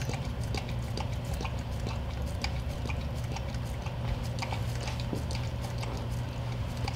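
Cane Corso licking and eating a calcium supplement from a small cup held to her mouth: an irregular run of small clicks and smacks, over a steady low hum.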